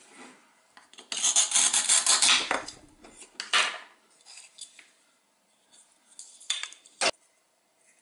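Velcro tearing apart as a toy apple is cut in half, a crackling rip of about a second and a half. A second, shorter rip follows, then light clicks and knocks of the toy pieces, the sharpest a knock near the end.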